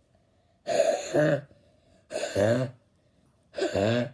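A person's voice making silly nonsense vocal noises: three short, breathy two-part calls about a second and a half apart.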